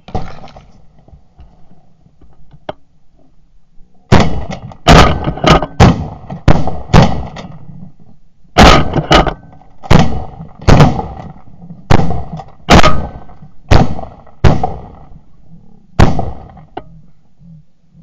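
Several hunters' shotguns firing a rapid volley at a flock of Canada geese coming into the decoys. More than a dozen shots, often overlapping, start about four seconds in and go on for about twelve seconds, with a short lull partway through.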